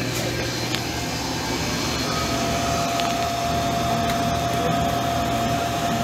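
Steady hum and whir of running commercial refrigeration equipment. A steady whine sets in about two seconds in and holds.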